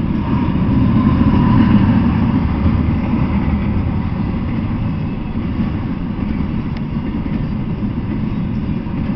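Double-stack intermodal freight train rolling past: a steady low rumble of the loaded well cars on the rails, a little louder in the first two seconds.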